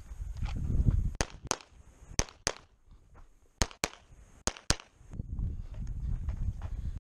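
9mm CZ SP-01 Shadow Target pistol firing eight shots in four quick pairs, each pair a fraction of a second apart: double taps on the paper targets of a USPSA stage.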